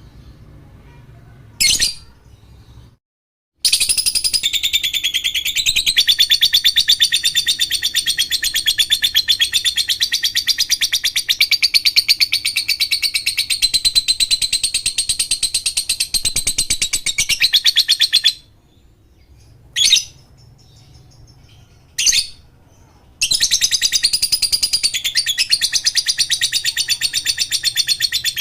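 Lovebird (Agapornis) singing in long, very fast high-pitched chattering trills, the 'ngekek' song: one unbroken trill of about fifteen seconds, a few short sharp calls, then another long trill starting near the end.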